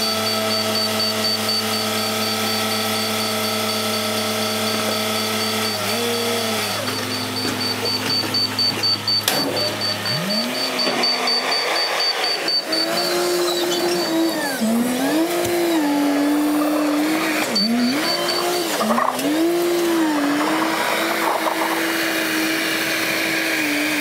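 Tractor and loader diesel engines working at a silage clamp. A tractor runs steadily while its trailer tips silage, then about ten seconds in a diesel engine begins revving up and dropping back again and again, as a wheel loader pushes silage up the clamp.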